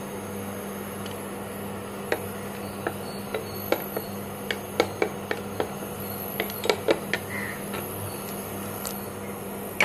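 Wooden spatula knocking and scraping against a stainless steel pressure cooker pan while stirring whole spices in ghee: a dozen or so irregular sharp clicks, starting about two seconds in, over a steady low hum.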